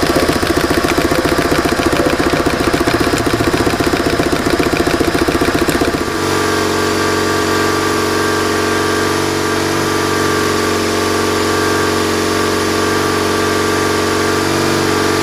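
BMW oilhead flat-twin boxer engine running with the throttle bodies being synchronized. It idles with a lumpy, pulsing beat, then about six seconds in it abruptly changes to smoother, steadier running.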